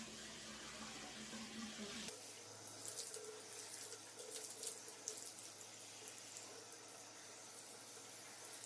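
Water from a handheld shower running in a tiled shower stall as a dog is wetted down: a faint, steady hiss with a few brief louder spatters about three to five seconds in.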